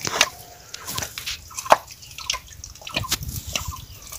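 Footsteps squelching through wet mud: irregular wet smacks and sucking clicks, a few each second.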